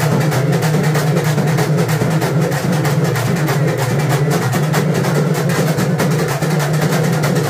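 Fast, steady drumming with a constant low drone underneath.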